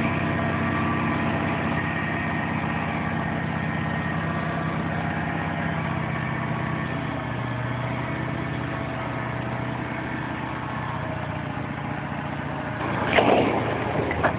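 Diesel dump truck engine running steadily as its hydraulic hoist raises a bed piled with concrete blocks. About a second before the end, the blocks slide off and clatter and crash onto the ground, the loudest part.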